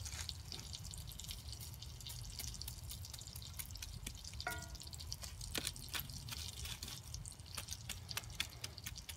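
Campfire embers crackling under a skillet: sparse, irregular sharp ticks and pops over a low steady hum.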